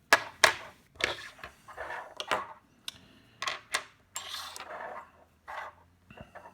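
Small metal hand tools being handled: a quarter-inch bit and pocket ratchets giving a string of irregular clicks, clinks and short rattling scrapes.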